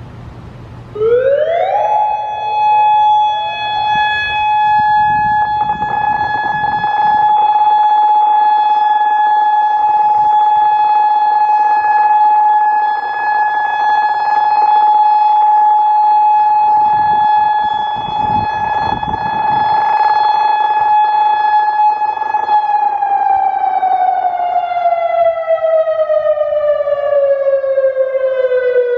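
Federal Signal Modulator 4016 outdoor warning siren sounding its steady alert tone. It winds up quickly about a second in, holds one loud steady pitch for about twenty seconds, then winds down with a slowly falling pitch near the end.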